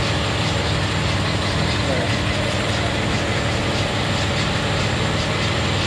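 Heavy Scania truck's diesel engine running steadily and loudly, with a dense, even noise over it.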